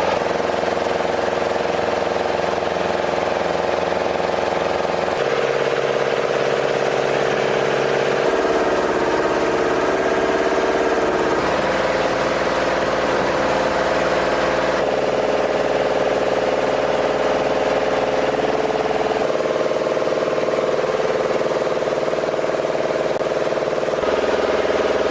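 Steady mechanical engine drone made of several steady hums. Its pitch mix shifts abruptly every few seconds, about six times.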